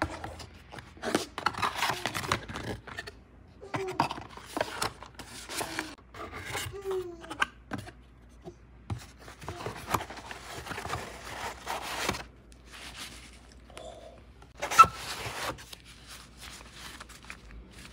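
Cardboard box and its packaging being handled: flaps and a molded pulp tray scraping and rustling, and soft white wrapping crinkling as items are lifted out, in irregular bursts. A single sharp knock stands out late on.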